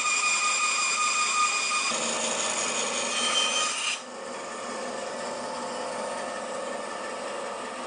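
Bandsaw blade cutting down through a wooden board to form a tenon cheek, a steady high-pitched whine over the rasp of the cut. About four seconds in the sound drops to a quieter steady run as the cut finishes and the saw keeps spinning.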